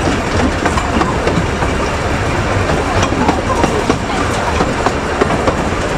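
A 20-inch gauge miniature railway train running, heard from inside a moving coach: a steady rumble of wheels on track with many small irregular clicks and knocks.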